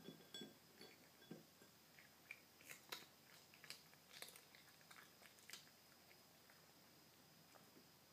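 A kitten chewing Sheba Duos dry cat food (salmon and creamy cheese flavour) from a plate: faint crunching and clicking bites, most of them in the first six seconds.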